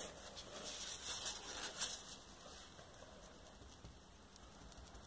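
A few soft rustles and light taps in the first two seconds as printmaking materials are handled on the work table, then almost quiet.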